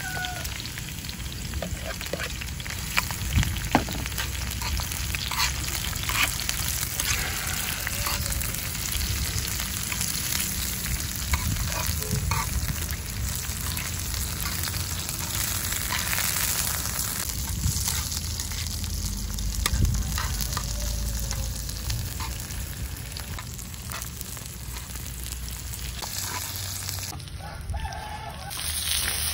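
Hot oil sizzling steadily in a cast-iron wok as lemongrass stalks and sliced red chillies fry in it, stirred with a metal ladle that knocks against the pan now and then.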